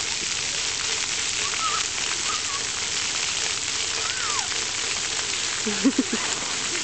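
Steady hiss and patter of splash-park water jets spraying and falling on wet pavement. A brief child's vocalisation comes in near the end.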